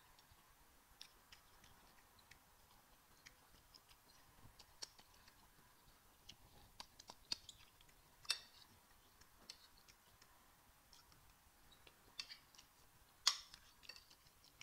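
Soft wet mouth clicks and smacks of close-miked eating, with a metal spoon knocking and scraping on a ceramic plate, loudest twice: about halfway through and near the end.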